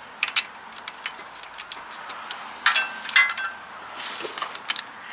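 Light metal clinks and ticks as the steel studs and plate of a brake piston wind-back tool are handled and threaded into a rear brake caliper piston, with two louder ringing clinks a little past the middle.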